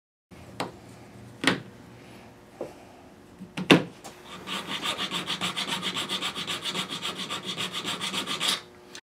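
A few sharp knocks, then a razor blade scraping across the Brazilian rosewood fingerboard between the frets in rapid short strokes, about ten a second, for around four seconds. The scraping clears the last leftover filler and glue from the fingerboard surface.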